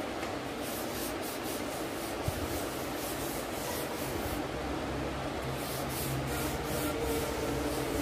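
Quick repeated rubbing of a cotton wad over pencil shading on paper, blending the graphite, over a low steady fan hum.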